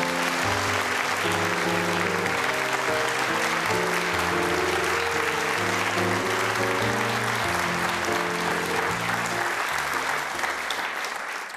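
An audience applauding steadily over background music with held, slowly changing notes. Both fade out near the end.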